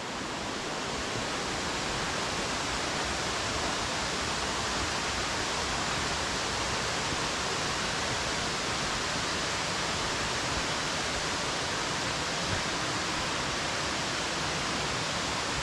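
Steady rushing of fast-flowing water from a swollen mountain stream or waterfall, an even hiss-like roar that holds constant throughout.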